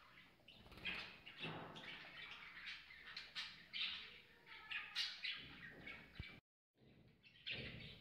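Budgerigars chattering in a string of short, sharp chirps, with a brief drop-out to silence about six and a half seconds in.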